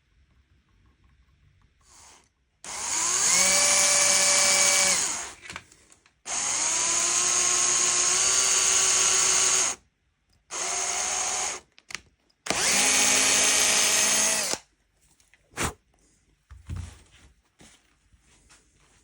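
An electric drill runs in four bursts of one to three seconds each, whining up to speed at the start of each run. A single sharp click follows after the last run.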